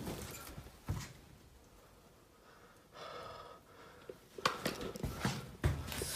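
Footsteps on a wooden corridor floor: a quick run of thuds and knocks starting about four and a half seconds in, after a near-silent stretch broken by a single knock and a faint breath.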